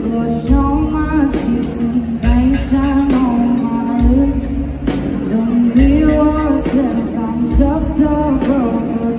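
A woman singing a melodic lead vocal live over a full band, amplified through an arena sound system, with a low beat about every two seconds.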